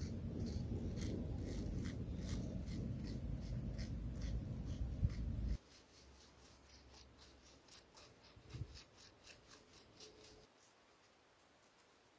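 A thin stick scratching and poking into loose sandy soil: a string of short scrapes, two to four a second. A low rumble under the first half cuts off suddenly about five and a half seconds in, leaving only the faint scratching.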